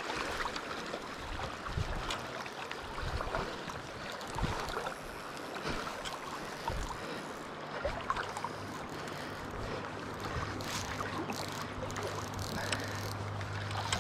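River current rushing steadily past a wading angler, with a few small knocks and clicks. A low steady hum grows stronger about eight seconds in.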